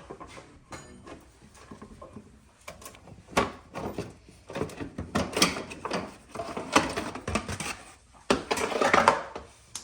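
Irregular scraping, rubbing and knocking of hands and tools working on a car's interior trim and panels, louder and busier from about three seconds in.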